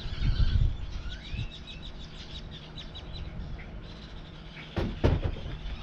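Birds chirping: fast runs of short, high chirps with a few gliding calls, and a low thump about half a second in and another about five seconds in.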